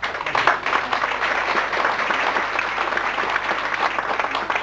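Audience applause: many people clapping at once, dense and even, starting suddenly.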